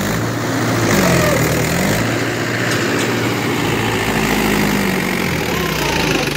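Mahindra 575 DI tractor's four-cylinder diesel engine working under load, hauling a laden trailer through deep mud. Its pitch sags and picks up again a few times, at about a second in and again in the second half.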